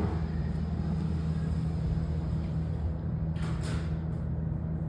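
Steady low hum in a standing elevator car that has not been sent anywhere, since no floor button has been pressed. A brief hiss comes about three and a half seconds in.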